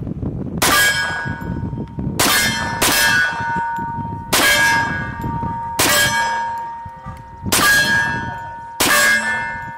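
Seven suppressed shots from a .45 ACP Remington R1 1911 pistol fitted with a Gemtech GM-45 suppressor, fired at an uneven pace about every second and a half, with a quick pair near the start. Each shot is followed by a ringing clang of struck steel that hangs on for a second or so, as from a steel target being hit.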